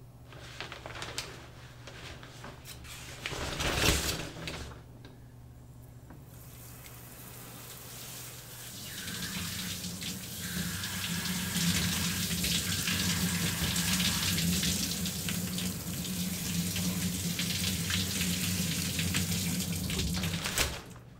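Shower running behind a drawn curtain: a steady spray of water that builds from a few seconds in to a full, even hiss with a low hum beneath it, cutting off suddenly near the end. Before it, rustling and a short louder clatter about four seconds in.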